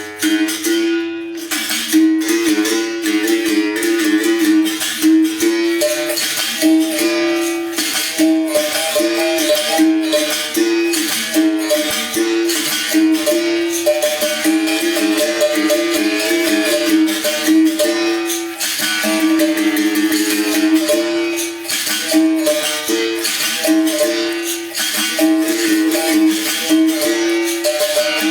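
A bamboo berimbau played in a steady rhythm: the stick strikes the wire with the caxixi rattling, and the note keeps switching between a few pitches as the stone or coin is pressed to and lifted off the wire.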